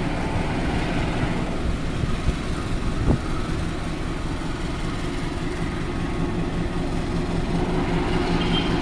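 CC 206 diesel-electric locomotive's engine running with a steady low drone as it moves past, hauling its train.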